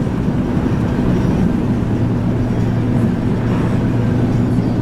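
Steady drone of a pickup truck running, heard from inside the cab: engine and road noise with a constant low hum.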